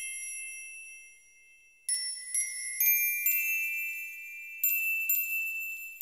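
High, chime-like musical notes, struck one at a time about every half second from about two seconds in, each ringing on under the next. Before them, the ringing left from an abruptly cut-off passage fades into a brief silence.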